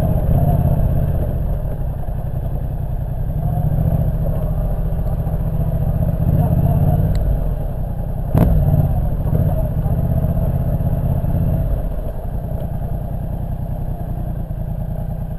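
Yamaha MT-07's parallel-twin engine breathing through an Akrapovic titanium full exhaust as the bike is ridden, its note swelling and easing with the throttle and dropping off near the end. A single sharp knock comes a little past the middle.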